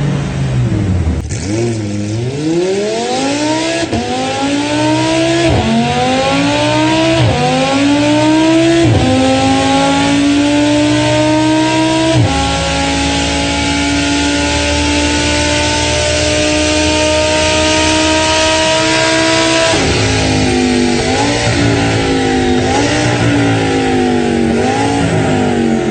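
Formula 1 car's V10 engine at full throttle, revving up through the gears with five or six upshifts, each heard as a sudden drop in pitch. It then holds a high, steady scream for about seven seconds. Near the end the revs fall, then rise and fall rapidly as the car lifts off and downshifts.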